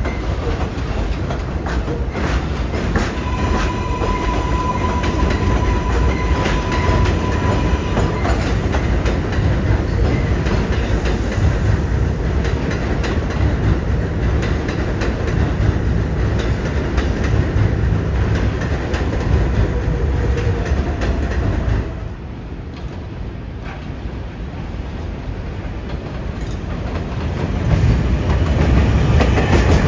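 R188 subway trains running on elevated steel track: a steady heavy rumble of wheels on rail with a rattle of clicks. About three seconds in, a high steady tone lasts about five seconds. The sound drops sharply about 22 seconds in, then another approaching train grows louder near the end.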